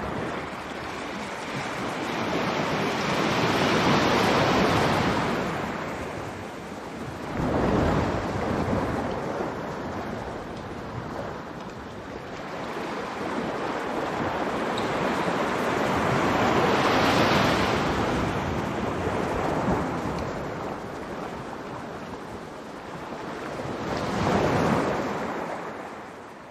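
Sea waves washing in over the shore rocks and drawing back, rising and falling in four slow surges.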